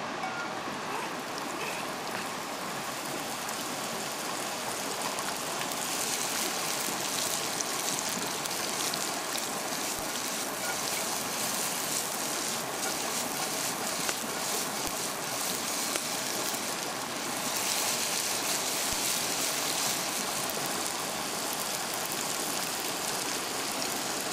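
Bacon sizzling in a frying pan over a campfire: a steady hiss with fine crackle that swells louder twice, about six seconds in and again past the middle.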